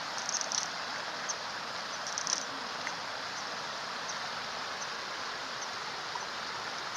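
Common kingfisher giving two short bursts of high, thin calls in the first few seconds, over the steady rush of a stream.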